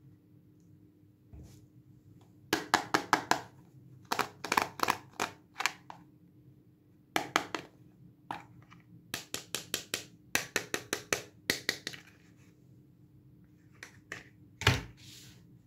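Fingers handling a small hard-plastic toy makeup compact: several quick runs of light plastic clicks and taps, then one louder clack near the end.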